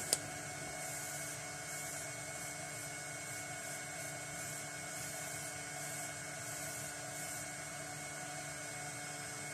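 Steady background hum with a faint even hiss, and a single click right at the start.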